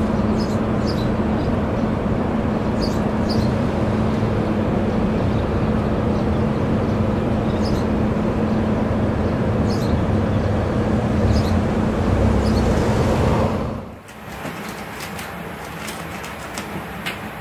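A loud, steady mechanical hum with a low steady tone, which drops off suddenly about 14 seconds in to a quieter background hiss with a few soft clicks.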